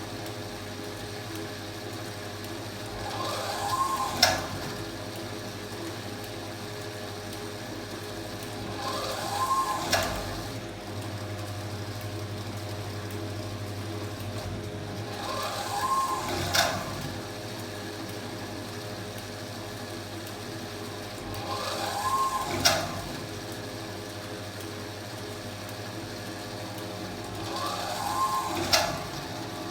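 Washing machine running through a wash cycle. About every six seconds the motor whirs up and back down in pitch for a second or two as it turns the drum, then gives a sharp click. A steady hum runs underneath.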